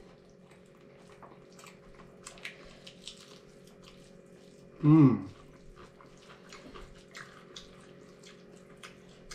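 Close-miked eating sounds: wet mouth clicks and smacks of chewing, scattered irregularly. About five seconds in comes one short, loud voiced sound, like a brief hum or exclamation.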